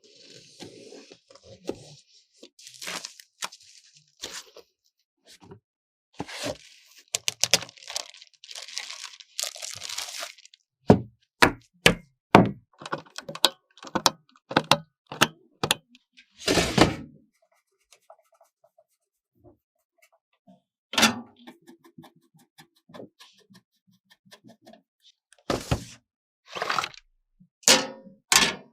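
Computer parts being handled and fitted during a PC build: a scattered series of sharp plastic and metal clicks, knocks and snaps. In the first ten seconds there are stretches of rustling, like packaging being handled, and around three-quarters of the way through there is a short pause.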